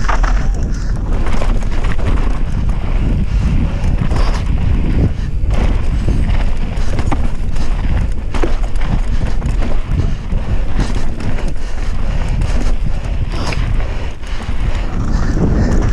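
Mountain bike descending a dry, rough dirt trail at speed: heavy wind buffeting on the bike-mounted camera's microphone, with tyres running over dirt and the bike rattling and knocking over bumps.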